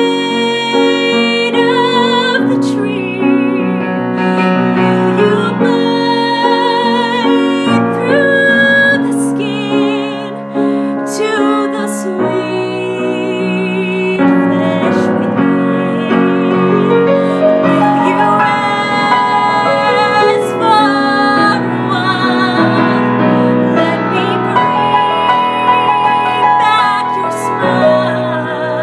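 A young woman singing a musical-theatre solo with vibrato over piano accompaniment.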